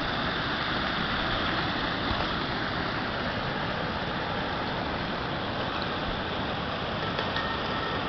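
Small waterfall of spring water rushing steadily over a low rock ledge.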